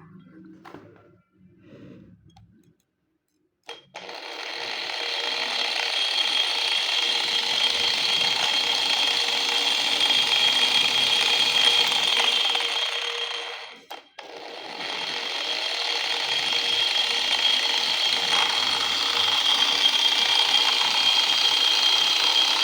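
Angle grinder motor running with a steady high whine, switched on about four seconds in and spinning up. It is switched off briefly near the middle and spins back up again.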